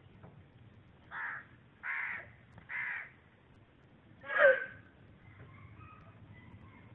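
Four short, harsh animal calls about a second apart, the last one much the loudest, followed by faint high chirps.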